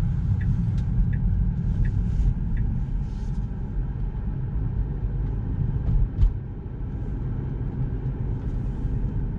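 Tesla Model 3 turn-signal indicator ticking about once every 0.7 seconds, stopping about two and a half seconds in, over the car's steady low rumble.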